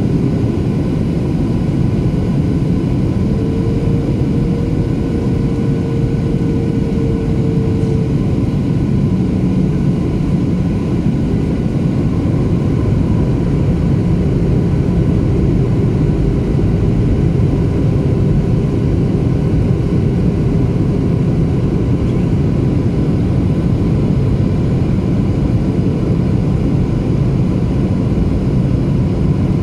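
Steady cabin noise inside a Boeing 737-800 descending: a low, even rumble of airflow and the CFM56-7B turbofan engines, with faint steady engine tones over it; one slightly higher tone swells for a few seconds near the start.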